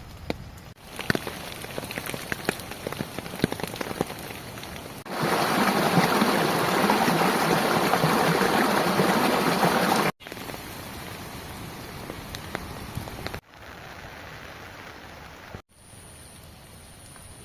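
Monsoon rain falling, in several separate clips that cut in and out abruptly. The first stretch has individual drops ticking over steady rain, the middle stretch is a heavy downpour and the loudest part, and the last stretches are lighter, steady rain.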